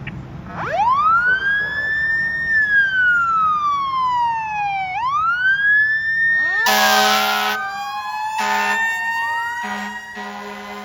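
Fire engine siren wailing, winding up, falling slowly and rising again. From about seven seconds in, the engine's air horn blasts about four times over the siren.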